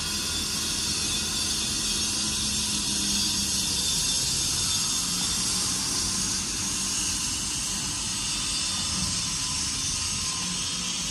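Steady outdoor city ambience: an even hiss with a low steady hum beneath it, a little louder in the middle.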